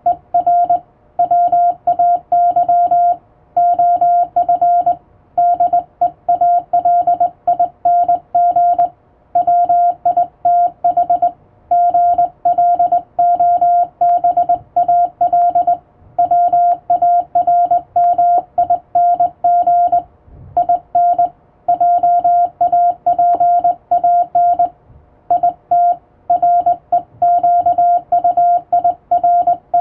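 Morse code keyed by hand on a straight key: a single steady beep tone switched on and off in dots and dashes, with short pauses between letters and words, sending English-alphabet Morse.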